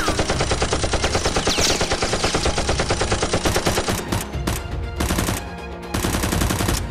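Rapid automatic gunfire, about ten shots a second for roughly four seconds, followed by a few longer, separate bursts near the end.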